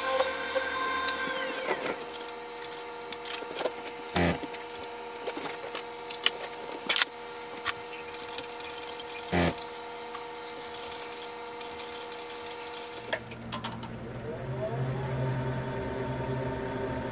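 Wood lathe: its motor whine falls in pitch about two seconds in as it slows, while a steady machine hum carries on with a few sharp knocks. About thirteen seconds in the sound changes and the lathe spins back up, its whine rising in pitch.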